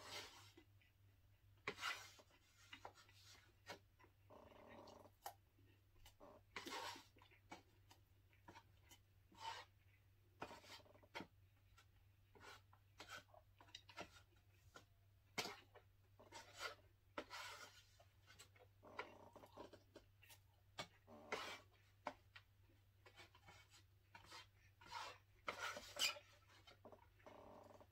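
A fork scraping and clicking against a foam takeout container as food is picked up, in short irregular strokes, between soft chewing sounds, over a faint steady low hum.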